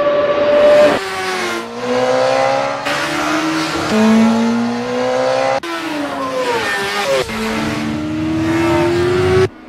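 Honda CBR sportbike engine at high revs, climbing in pitch and dropping back at each gear change, with a stretch of falling pitch in the middle as it slows. The engine sound cuts off suddenly near the end.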